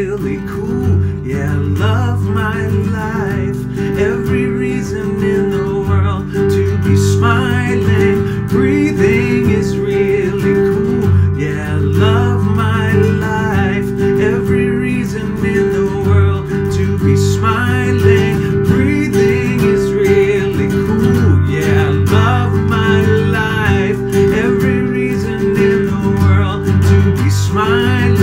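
A man singing while strumming chords on an acoustic guitar.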